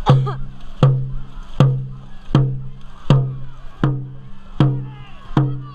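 Dragon boat drum beaten in a steady stroke rhythm, about eight even beats, one every three-quarters of a second, each with a low ring, setting the paddlers' pace.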